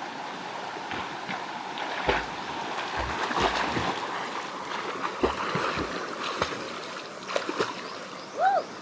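River water running and splashing around a swimmer, with a few sharper splashes. Near the end comes a brief call that rises and falls in pitch.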